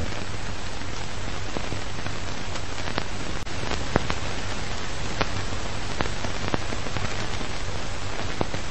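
Steady rain falling, an even patter with a few sharper single drops standing out here and there.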